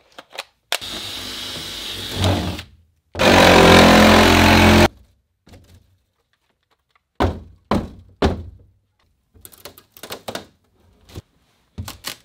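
Cordless power tool running in two bursts as it cuts through a stud wall, the second louder. From about seven seconds in, a string of thuds and cracks as the wall is knocked and pushed through to open the passage.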